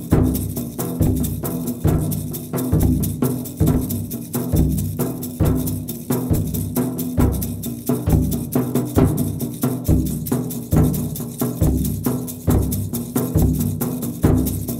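Background music with a steady drum beat, about one low drum hit a second over a held low tone.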